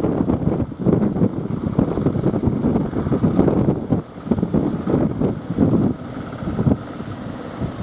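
Strong wind buffeting the microphone in uneven gusts, a low rumble that eases slightly after about six seconds.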